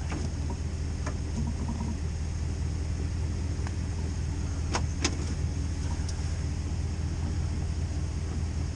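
Pickup truck engine idling steadily, with a few sharp clicks from the plow's electrical plugs being unplugged and handled, the loudest two close together about five seconds in.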